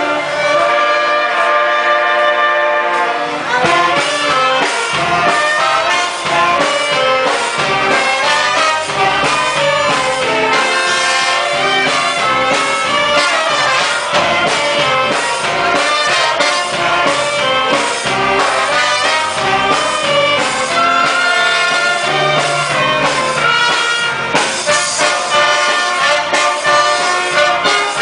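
Orchestra of strings and brass playing a medley of Christmas music. It opens on long held chords, then about three and a half seconds in moves into a quicker rhythmic passage.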